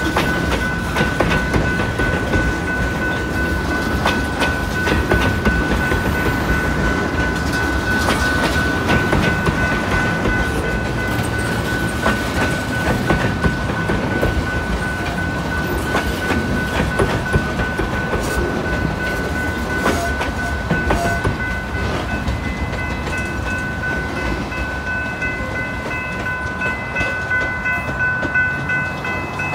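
Railway propane tank cars rolling past at a level crossing: a steady rumble with wheels clicking over the rail joints. The crossing's warning bell rings steadily, with a second, higher ringing joining about two-thirds of the way in.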